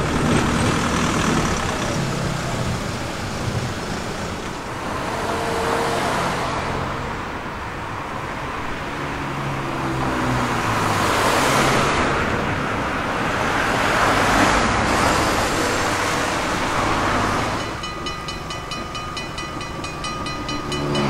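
Historic electric trams running past amid road traffic, the noise swelling and fading as vehicles pass. About eighteen seconds in, a level-crossing warning bell starts ringing in fast, even strokes.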